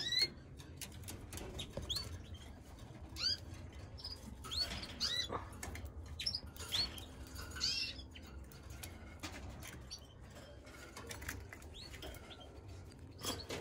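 Caged canaries giving short rising chirp calls every second or so, over many light clicks and taps, with a louder noise right at the end.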